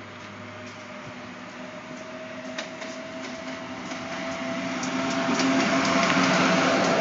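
Amtrak AEM-7 electric locomotive hauling Amfleet coaches, approaching and passing at speed and growing steadily louder. A steady whine runs through it, and from about halfway in the wheels click over the rail joints.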